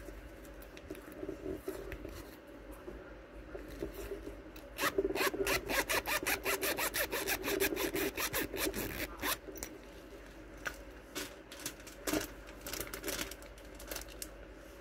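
Zipper on a small padded fabric pouch being pulled, a fast run of ticks from about five to nine seconds in, with rubbing and handling of the pouch around it and a few separate clicks near the end.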